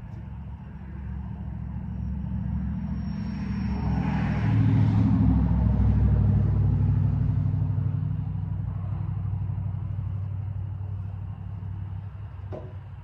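A motor vehicle's engine rumbling as it passes, swelling to its loudest about five seconds in and then fading away. A single sharp click comes near the end.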